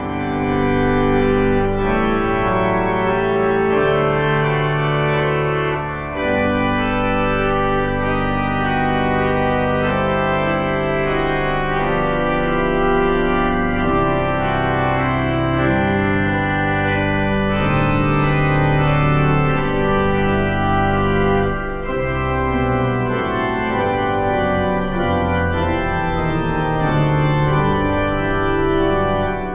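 Organ music: slow held chords changing every second or two, with short breaks between phrases about six seconds in and again past twenty seconds.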